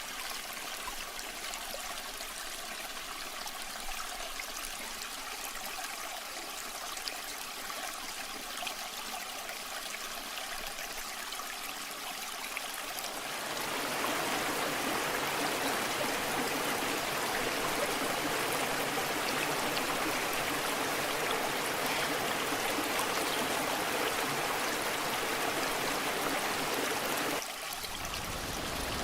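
Waterfall water rushing steadily, an even hiss of falling and running water. About halfway in it becomes louder and fuller, and it dips briefly near the end.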